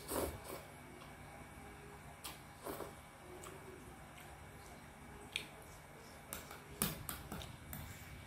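Close-up eating sounds: a slurp of noodles right at the start, then wet chewing and mouth noises. A few sharp clicks of a metal spoon against a ceramic bowl come in the second half.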